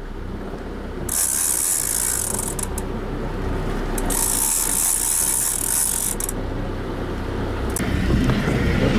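Big-game trolling reel being cranked against a hooked bluefin tuna, its gears ticking rapidly and steadily, over the low steady hum of the boat's engine. A high hiss comes and goes in stretches.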